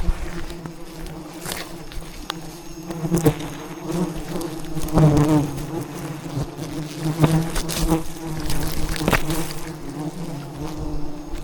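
A swarm of wild bees buzzing steadily, with a few sharp clicks and knocks scattered through it.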